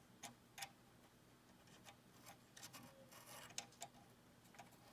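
Near silence with faint, scattered light clicks and rubbing as a wiring cable is worked around the cables inside a car head unit and its connector pushed onto the circuit board.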